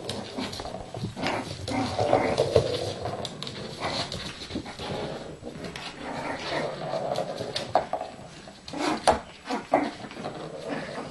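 Bichon Frisé dogs whining in drawn-out pitched cries, with a few short sharp sounds near the end.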